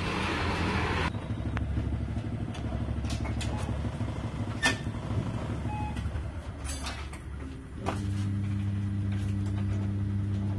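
Vehicle engine idling with a steady low hum. There is a short hiss in the first second, a rougher rumble through the middle, and the even hum returns a little before the end, with a few scattered clicks and knocks.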